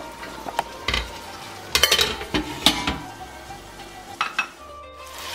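Glass pan lid with a steel rim set onto a frying pan, giving a few sharp clinks and knocks, over the low sizzle of the meat curry cooking under it.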